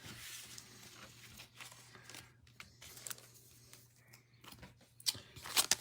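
Faint handling of trading cards and pack wrappers: soft rustles and light ticks, with a louder crinkle of foil wrapper starting near the end.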